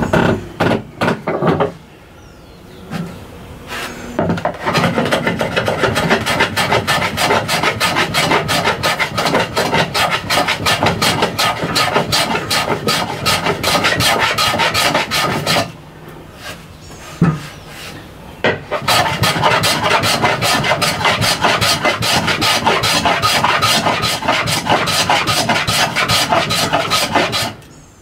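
Hand plane taking rapid, repeated strokes across the edge of a cherry board, a rasping shave of wood on each pass. The strokes stop briefly about two seconds in and again a little past the middle, then resume.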